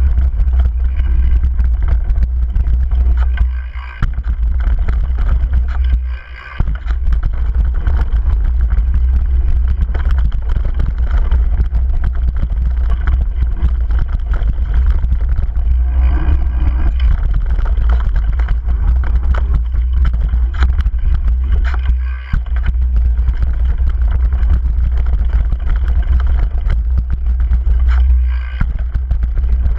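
Downhill mountain bike ride: steady wind rush on the bike-mounted camera's microphone, with the tyres rumbling and the bike rattling over a dirt trail. The noise dips briefly a few times.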